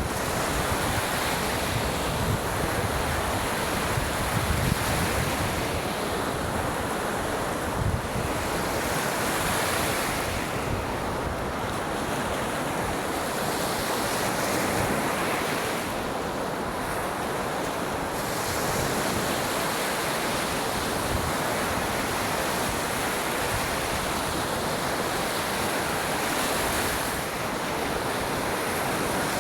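Lake waves washing steadily onto a beach, with wind buffeting the microphone as low rumbles, mostly in the first several seconds.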